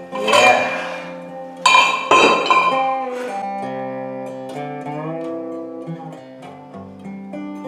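Guitar played live: a few loud struck chords in the first couple of seconds, then single ringing notes, some sliding in pitch.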